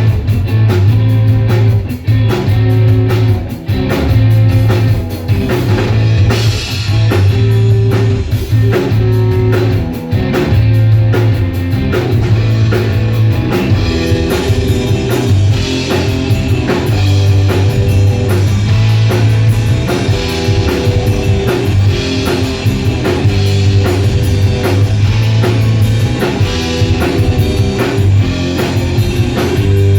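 Rock band playing live: guitar and drum kit over a strong, low bass line that shifts note every second or two.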